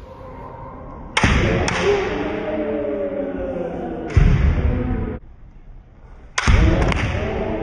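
Kendo fighters giving long, drawn-out kiai shouts: one starts about a second in and another near the end. Sharp sudden thuds come with the shouts, the heaviest around the middle.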